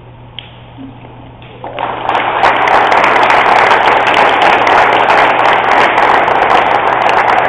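Crowd applause, starting about two seconds in and keeping up steadily.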